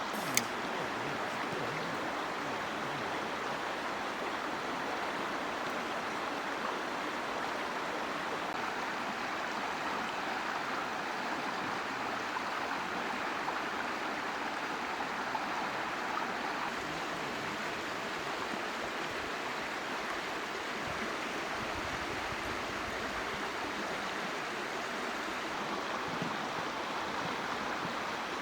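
Mountain stream water running, a steady rushing that holds throughout. A single sharp click sounds about half a second in.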